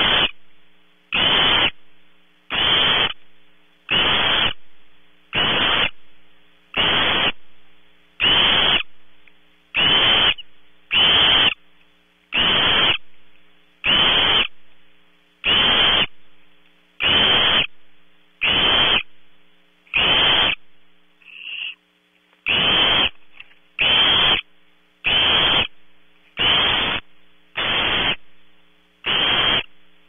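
Barn owl nestling's begging call: a rasping hiss, repeated about every second and a half, each one sharp at the start and fading away.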